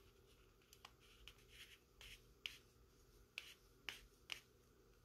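Faint, scattered clicks and scrapes of a small plastic oiler case and its screw cap being handled and turned, with the sharpest clicks in the second half.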